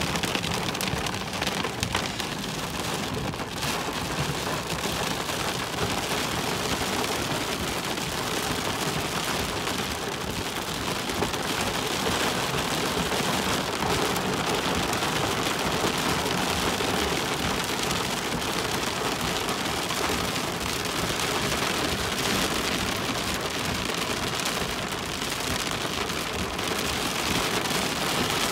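Soft hail and rain falling heavily, a dense, steady patter of countless small hits.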